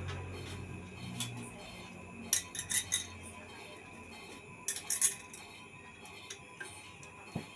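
Sharp metallic clinks in two short clusters, about two seconds in and again about five seconds in, from metal ceiling-fan parts being handled and knocked together during cleaning, over steady background music.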